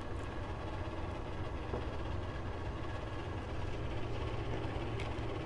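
Steady low background hum, with a faint click about five seconds in.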